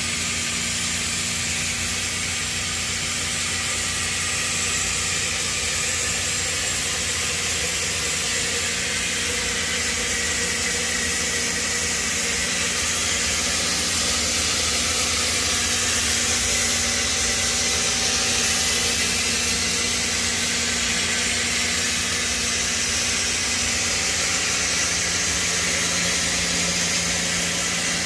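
Steady hum and hiss of running machinery. A low hum drops a little in pitch near the end.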